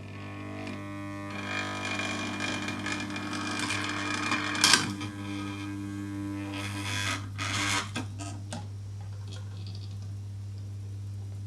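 Spot-welder transformer humming steadily under a dead short of its heavy secondary cables. Bursts of crackling come from about a second and a half in and again around seven seconds, with the sharpest crack near five seconds, as the overloaded cables heat up and start to smoke.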